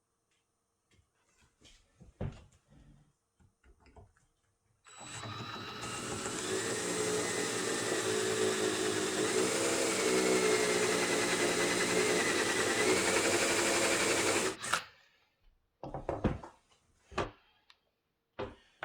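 Electric drill running for about ten seconds, boring out a stuck screw to free it, its motor whine wavering slightly in pitch before it cuts off. A few light knocks and clicks of handling come before and after.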